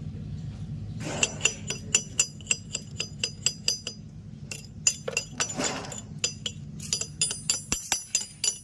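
Hammer striking a welded steel pipe flange again and again, about three sharp ringing metallic taps a second starting about a second in, typical of chipping slag off a fresh stick weld. A low steady hum lies underneath.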